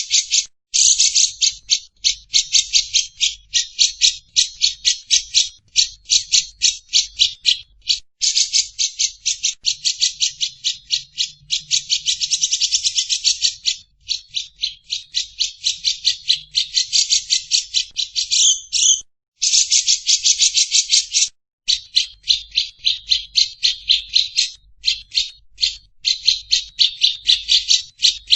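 A bird's rapid, high-pitched chattering song: long runs of quick repeated notes, several a second, broken by brief pauses.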